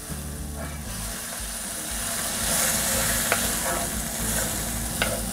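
Sliced onions sizzling in a frying pan over a charcoal grill as they are stirred, deglazed with a splash of vinegar to loosen the browned bits from the bottom of the pan. The sizzle swells a little in the middle, with a couple of light clicks near the middle and end.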